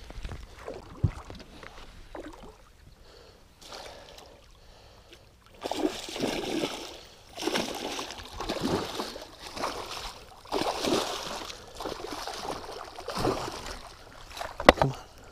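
Water splashing in irregular bursts from about six seconds in as a small hooked musky thrashes at the surface beside the boat while being netted, with a couple of sharp knocks near the end.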